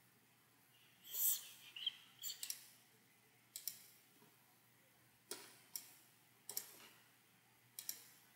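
Computer mouse buttons clicked about half a dozen times, mostly in quick pairs of sharp clicks, as folders and windows are opened and closed.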